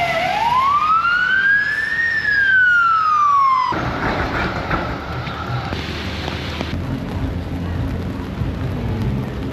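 An emergency vehicle siren wails, rising in pitch for about two seconds and then falling, and cuts off abruptly a little under four seconds in. Steady rainy city street noise with a low rumble follows.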